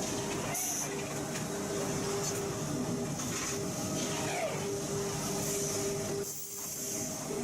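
Forging-plant machinery running: a steady mechanical hum with a held tone, broken by short hisses every second or so, and briefly easing off about six seconds in.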